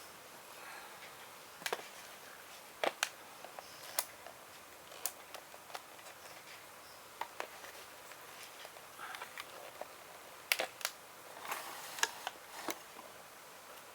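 Irregular small clicks and taps, with brief soft rustles, from handling a 100 µF 400 V electrolytic capacitor and a meter's test leads while the capacitor is checked on the meter.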